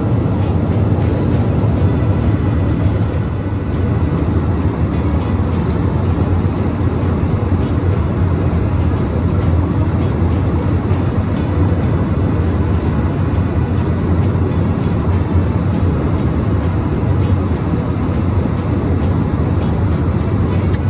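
Steady rumble and rush of engine and air noise inside a passenger airliner's cabin, even throughout.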